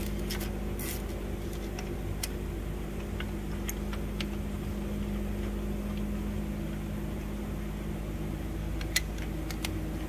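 Scattered light metal clicks and taps from a retaining-ring installer tool being turned down by hand in an injector bore of a Cummins ISX cylinder head, the sharpest about nine seconds in, over a steady low machine hum.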